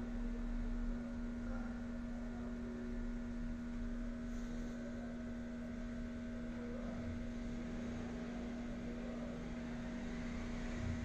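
Steady electrical hum, one unchanging tone, over a low background rumble.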